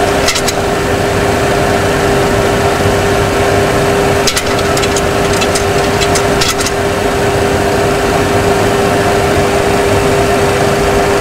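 Steady Boeing 737 Classic flight-deck noise: a constant rush of air and equipment with a steady hum underneath. A few light clicks come about half a second in and again between about four and seven seconds in.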